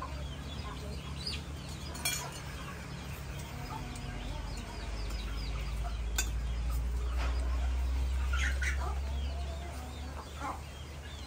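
Chickens clucking and small birds chirping, with a low rumble that swells about halfway through and fades again, and a couple of sharp clinks of spoons on plates.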